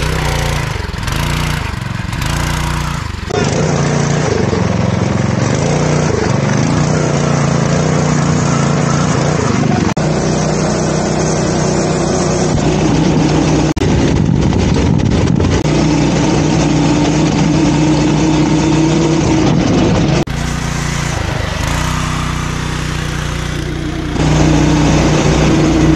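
Polaris Hammerhead Mudhead 208R off-road go-kart's single-cylinder 208cc engine running as the kart is driven through mud, its pitch rising and falling with the throttle.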